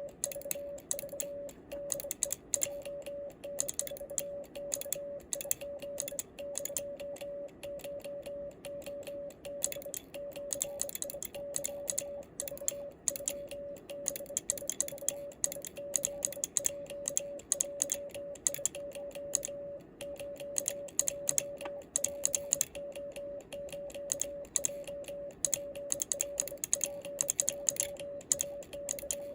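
Home-made stainless steel bug (semi-automatic Morse key) sending Japanese Morse code: a steady medium-pitched beep keys on and off in dots and dashes, with the key's contacts clicking on each element.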